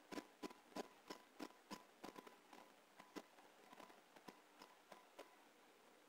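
Pencil drawing on paper: a string of faint, short scratchy strokes, quick at first at about three a second, then sparser.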